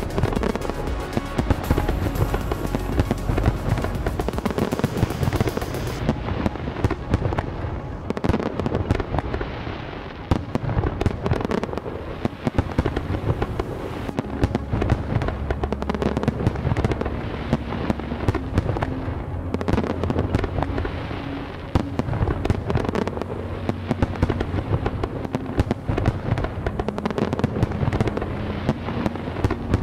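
Fireworks display: many shells bursting in quick succession, with bangs and crackling throughout and music playing underneath.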